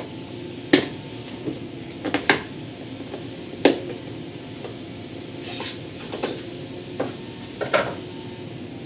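Cardboard packaging handled on a table: several sharp, irregularly spaced taps and knocks, with a brief rustle a little past the middle, as papers are lifted out of the box's inner compartment.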